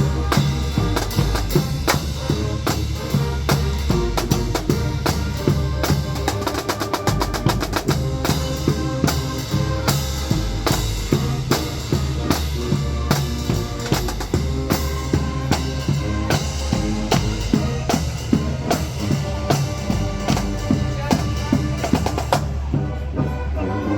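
Marching band drumline playing a percussion feature: snare and bass drums in a driving pattern, with a fast roll about seven seconds in. Near the end the crisp high strokes drop away.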